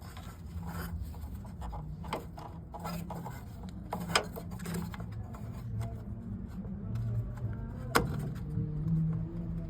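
A few sharp clicks and knocks as a replacement radiator is shifted and levelled in place in the car, the loudest near the end, over a faint low hum.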